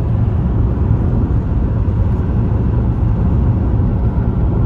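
Steady low rumble of a Toyota Avensis diesel car cruising on the road, heard from inside the cabin: engine and tyre noise together.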